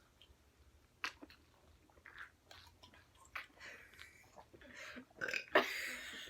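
Faint gulping and mouth sounds of someone drinking soda, with a few small clicks, then a louder breathy rush near the end.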